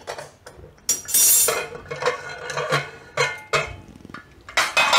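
A hard-anodised pressure cooker being opened after cooking: a short hiss of leftover steam about a second in as the whistle weight is lifted with a steel spatula, then a series of metal clanks and clinks as the lid is twisted free and lifted off, the loudest clank near the end.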